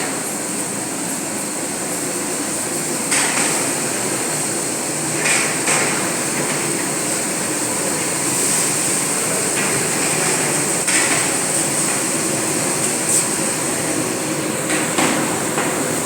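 Large-scale cooking work: a steady hiss runs throughout, and utensils knock sharply about six times at irregular intervals.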